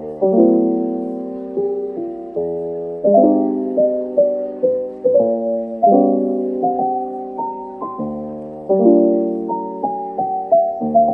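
Soft lo-fi piano music: a gentle melody over chords, each note struck and fading, sounding muffled with the highs cut off.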